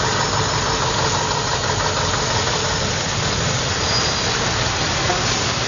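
Diesel engine of an older Scania tractor unit running as the truck drives slowly past, over a steady hiss from the wet road.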